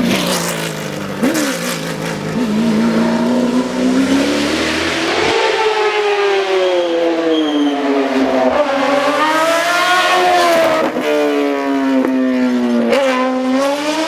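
Competition car engine at full throttle, its pitch climbing and then dropping several times as it shifts through the gears, loud throughout.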